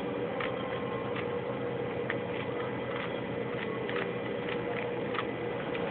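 Rubik's Cube being turned by hand: irregular plastic clicks as the layers are twisted, about two a second, over a steady hum.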